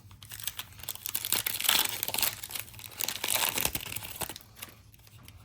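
Plastic wrapper of a Panini NBA Hoops trading-card pack being torn open and crinkled, a dense crackling that is loudest in the middle and dies away in the last second.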